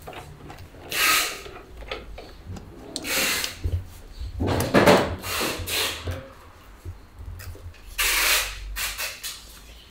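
Hands working on a new motorcycle: four short rubbing, scraping bursts with light knocks between them.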